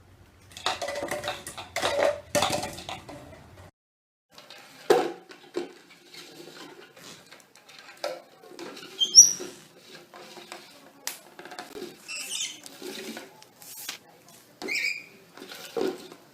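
A clatter of small hard objects for about three seconds, then scattered taps and rustles with short high squeaks from a pet parrot, several of them over the last seven seconds.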